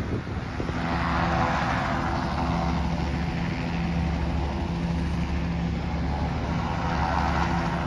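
An engine running steadily with a low, even hum. A broader rushing noise swells about a second in and again near the end.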